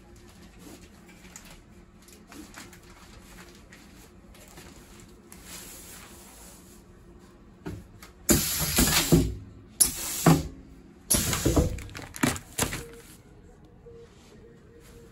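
Pneumatic cylinders of an impulse bag sealer with a toothed cutting knife working through a cycle: after faint handling clicks, about eight seconds in come three loud bursts of compressed air hissing and clunking, each under a second, as the clamp and knife actuate and release.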